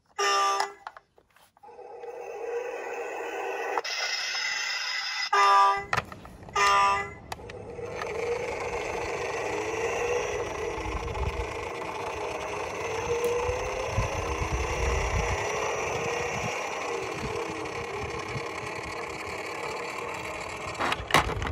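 Toy vehicles' electronic sound effects: short pitched beeps at the start and a pair more about five to seven seconds in, then a long rumbling rattle of toy cars rolling down a plastic slope, under a faint rising and falling siren tone. A few clicks near the end.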